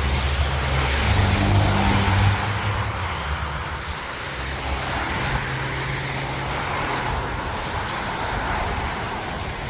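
Road traffic passing on a wet, slushy, salted road: a heavy engine drone, loudest in the first two seconds, then easing to tyre hiss, with a fainter engine hum returning midway.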